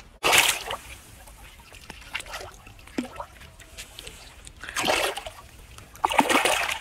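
A hooked fish thrashing in shallow water at the bank, splashing in irregular bursts. The loudest splashes come just after the start, around five seconds in and near the end, with smaller splashes in between.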